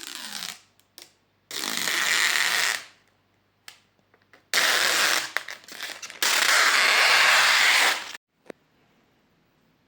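Three long bursts of loud, even hiss, each one to two seconds long, then a single faint click and near silence.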